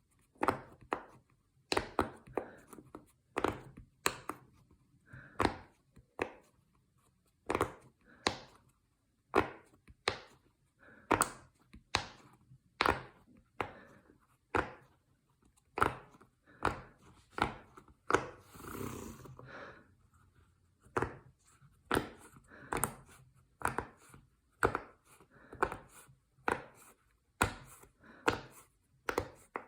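Silicone pop-it fidget toy bubbles being pressed through one after another: a long run of sharp pops, about two a second, often in quick pairs. A noisier sound lasting about a second comes about two-thirds of the way in.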